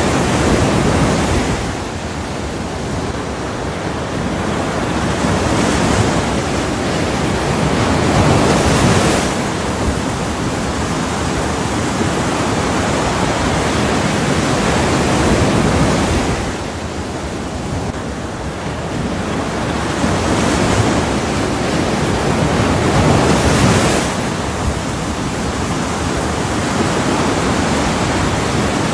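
Ocean surf: waves breaking and washing in, the rushing noise swelling and ebbing every few seconds.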